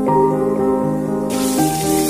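Soft instrumental background music; about a second and a half in, hot oil starts sizzling as whole boiled eggs drop into the wok.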